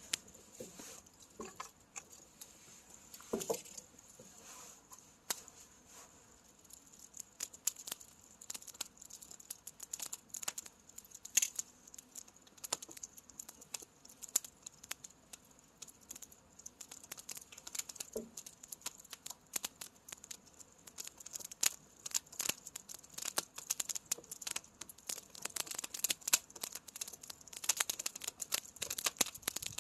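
Firewood burning, crackling and popping irregularly over a steady faint hiss. The pops come more often near the end.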